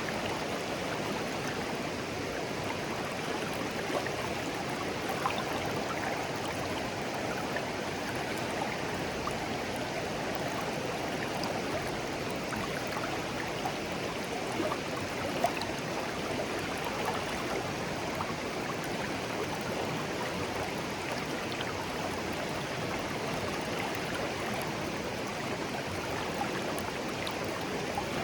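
Shallow clear stream flowing steadily over stones, an even babbling rush with small splashes and gurgles scattered through it.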